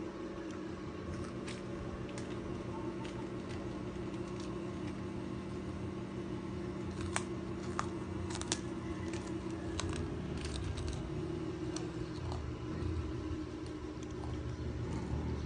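Quiet room tone: a steady low electrical hum, with a few sharp light clicks and taps around the middle.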